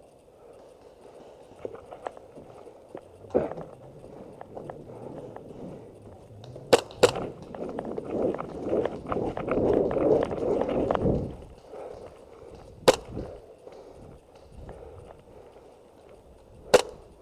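Airsoft gas pistol shots: two quick cracks about seven seconds in, another near thirteen seconds and one near the end. Between them, a few seconds of rustling, scuffling movement.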